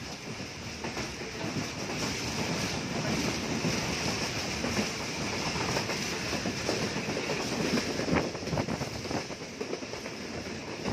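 Passenger coach wheels running at speed over the track: a steady rumble and rattle with a clickety-clack over the rail joints. It grows louder about two seconds in, and there is a sharp clank about eight seconds in.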